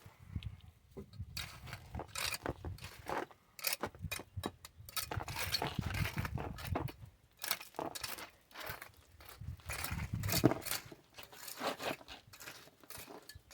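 A hand trowel scraping and knocking through wet concrete mix in irregular strokes.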